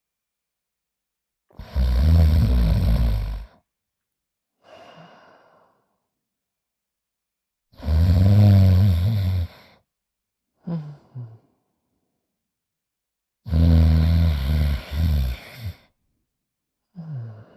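A cartoon character snoring in slow cycles: three loud snores, each about two seconds long, each followed by a shorter, quieter breath out.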